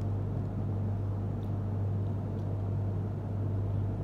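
A steady low hum with a noisy rumble beneath it, unchanging throughout, like a running machine or appliance.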